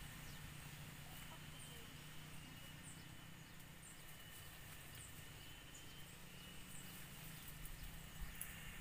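Faint forest ambience: short high chirps repeat about once a second over a faint steady high hum, with a low rumble underneath.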